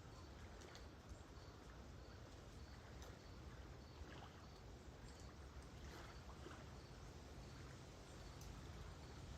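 Faint, steady wash of calm lake waves, with a cricket chirping softly about twice a second and a few light clicks.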